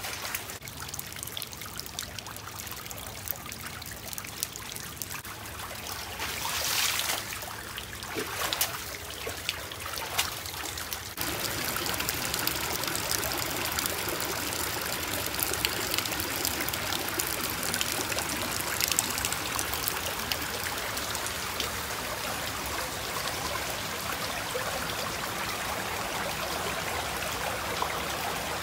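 Shallow floodwater rushing over a stone path, a steady watery rush that grows louder and fuller about eleven seconds in.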